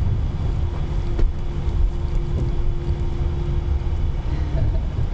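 Cabin noise of an Airbus A320 taxiing on the ground: a steady low rumble from the idling jet engines and rolling gear, with a steady hum above it and a single knock about a second in.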